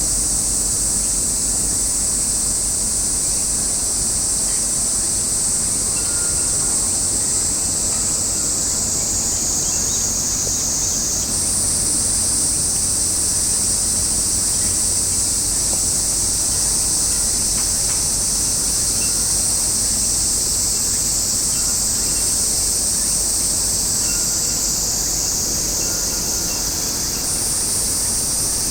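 A continuous chorus of cicadas buzzing at a high pitch. The pitch sags slightly and then steps back up twice, over a steady low rumble.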